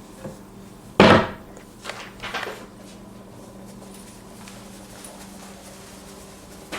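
A single loud knock about a second in, followed by two softer knocks shortly after, over a steady low hum.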